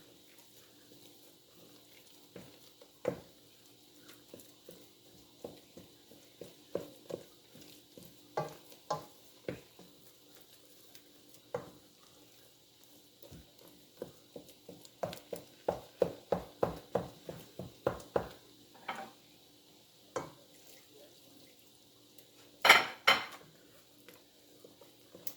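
A long-handled spoon stirring a pot of fufu dough as water is worked in, knocking against the pot. The knocks come irregularly, then in a quick run of about four a second past the middle, with one louder clatter near the end, over a faint steady hum.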